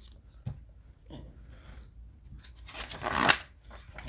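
A picture book's page being turned: one papery swish about three seconds in.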